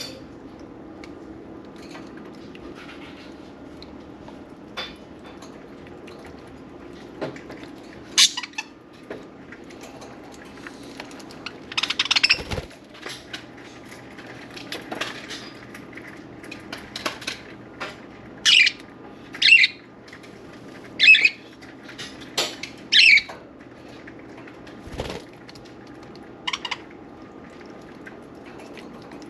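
Pet budgerigars giving short, sharp chirps and squawks, scattered through, with a run of loud calls in the second half, over a low steady hum.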